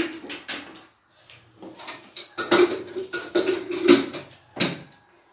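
A metal offering plate being handled, giving a string of short, irregular clatters and knocks with brief pauses between them.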